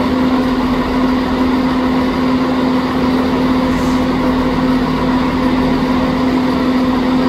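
Class 170 Turbostar diesel multiple unit's underfloor diesel engines running with a steady, unchanging hum as the train moves slowly away.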